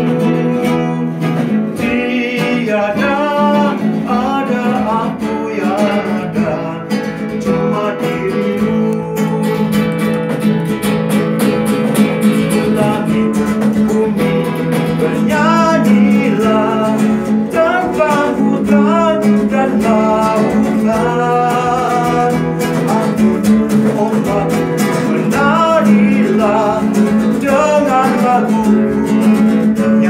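Acoustic guitar strummed live, with a man's voice singing a wavering melody over it.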